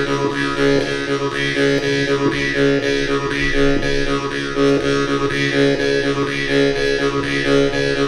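Live improvised music: a double bass being bowed together with a steady low drone whose overtones sweep up and down.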